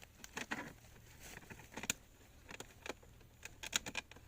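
Irregular clicks, knocks and rattles of a snake trap being handled as snakes are taken out of it, a few quick ones bunched together near the end.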